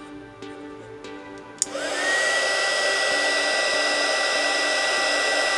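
Household heat gun switched on with a click about a second and a half in; its fan spins up with a rising whine that settles into a steady high tone over rushing air, used to shrink heat-shrink tubing over soldered battery wires.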